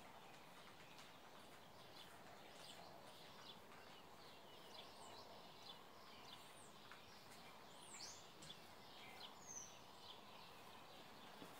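Near silence: faint room tone with a few faint, short, high bird chirps scattered through it.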